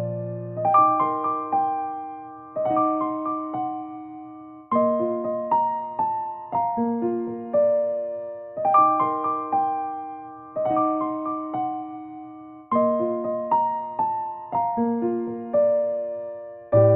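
Background music: gentle keyboard notes, each struck and fading, in a phrase that starts over about every two seconds.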